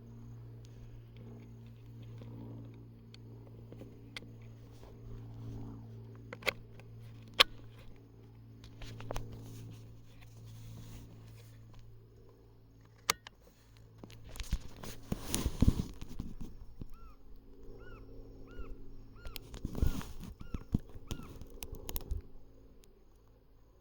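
Animal sounds close by over a steady low hum, with a few sharp clicks and two noisier stretches of rustling. A run of short, repeated high chirps comes partway through.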